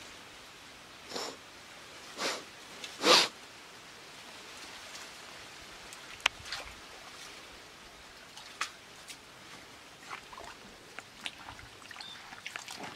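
Shallow muddy water splashing and sloshing as it is scooped with a plastic basket and hands, with three short splashes in the first few seconds, the third the loudest, then small drips and clicks.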